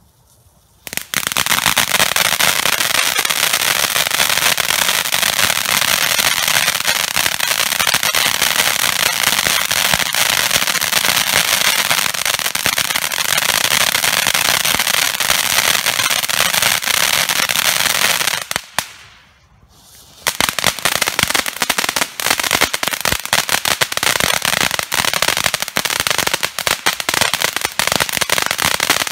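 Ground firework fountain erupting about a second in after its fuse burns down, spraying sparks with a loud, dense hiss and crackle. It stops briefly about two-thirds of the way through, then starts again with rapid crackling.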